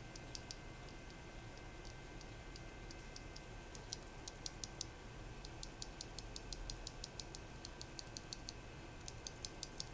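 Loose Gateron linear mechanical keyboard switches pressed repeatedly between the fingers: faint, quick runs of small clicks as the stems bottom out and spring back.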